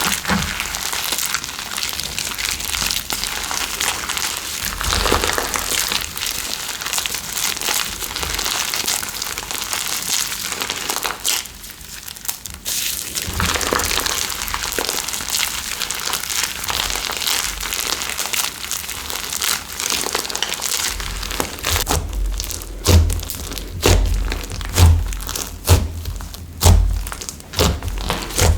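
Slime being squished and worked by hand, with dense crackling and popping. In the last third come several low, heavy thuds, spaced a second or two apart, as the slime is pressed or slapped down.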